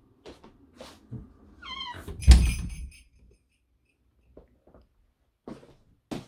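Footsteps, then a door hinge gives a short rising squeak and the door shuts with a heavy thump about two seconds in; a few more faint steps follow.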